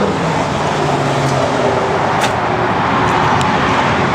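Steady, really loud road-traffic noise, with a low hum that fades out about a second and a half in.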